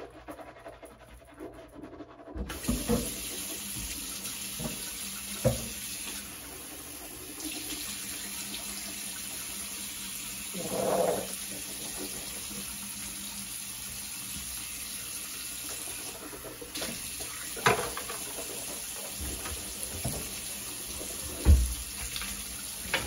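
Bathroom sink tap running steadily into the basin, turned on about two seconds in, with a few sharp knocks and clatters at the sink.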